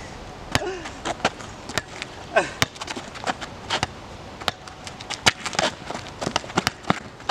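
Small rubber ball dribbled on street asphalt: quick, irregular smacks of the ball on the pavement.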